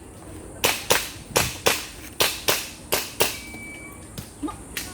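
Airsoft pistol firing about eight sharp shots in quick pairs, each pair fired about a third of a second apart, as double taps on targets; two softer clicks follow near the end.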